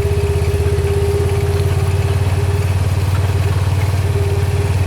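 A small vehicle engine idling steadily, with an even low running note and a thin steady whine above it.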